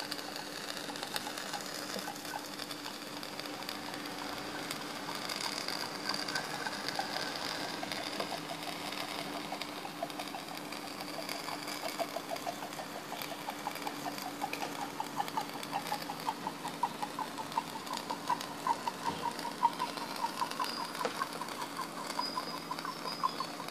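Tin-can pop-pop boat's candle-heated boiler diaphragm popping rapidly and evenly as the steam engine runs, the pops growing louder and clearer in the second half.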